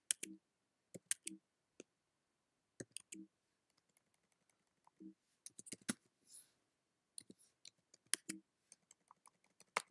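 Slow, irregular keystrokes on a computer keyboard: single sharp clicks with pauses between them as a short terminal command is typed.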